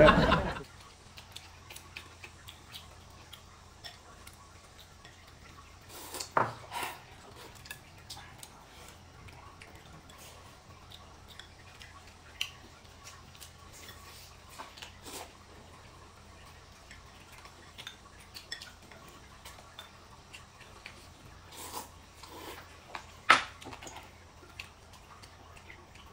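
Chopsticks and a spoon tapping and clinking against bowls during a meal: sporadic light clicks, with a few louder clinks about six seconds in and again near the end.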